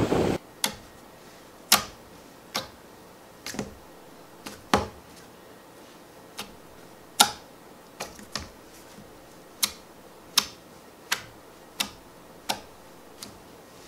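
Red jelly slime being poked and pressed with a fingertip, giving sharp wet clicks and pops at irregular intervals, about one a second and sometimes two in quick succession. A brief burst of wind and surf noise sits at the very start, before a cut.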